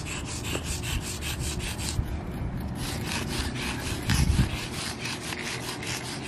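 Sidewalk chalk scraped back and forth on a concrete pavement in quick, even strokes, about five a second, as colour is rubbed in and blended. A brief low rumble about four seconds in.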